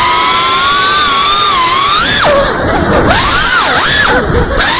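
FPV quadcopter's brushless motors and propellers whining, heard from the onboard camera. The pitch holds and slowly rises, then from about halfway it swoops sharply down and back up several times as the throttle is cut and punched again.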